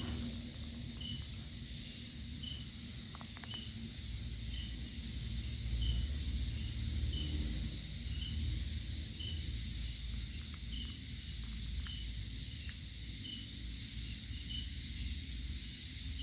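Outdoor natural ambience: a short high chirp repeating about once a second over a steady high insect drone, with a low rumble underneath.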